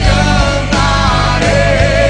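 Christian worship song played by a full band with drums. A voice holds sung notes with a wavering vibrato.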